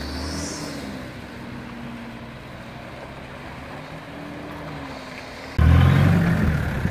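Off-road 4x4's engine running under changing throttle, its pitch drifting slowly up and down. About five and a half seconds in it suddenly becomes much louder and harder-working.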